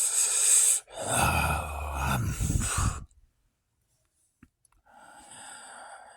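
A man sighing heavily: a long, loud breath out that becomes voiced about a second in and stops about three seconds in. After a pause of nearly two seconds comes a quieter breath near the end.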